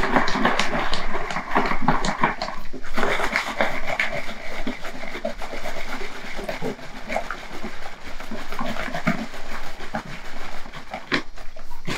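Liquid pottery glaze sloshing and churning as it is shaken hard inside a plastic bottle, with the bottle's plastic crackling, to remix glaze that has settled and hardened at the bottom from long storage. A short pause about three seconds in.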